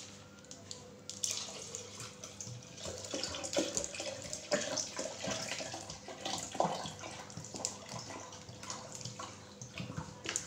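Water poured from a plastic bottle into a glass blender jar over mint leaves, splashing unevenly as it fills; the pouring picks up about a second in.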